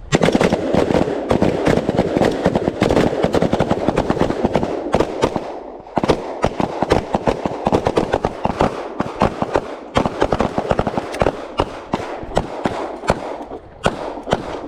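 Rapid, overlapping gunfire from several shooters firing rifles and pistols on a firing line during a rifle-to-pistol transition drill. It starts abruptly, has a brief lull about six seconds in, and thins out near the end.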